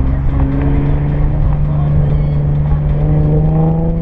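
Infiniti G37xs's 3.7-litre V6 running through resonated test pipes and an ARK Grip cat-back exhaust while the car drives. It gives a steady exhaust drone that rises slowly in pitch as the car gently gathers speed.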